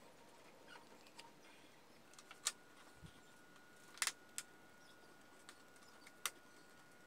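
A few light clicks and taps from handling small parts and fitting a thin plywood control-panel strip into the front of a wooden speaker box. The loudest is a quick double click about four seconds in.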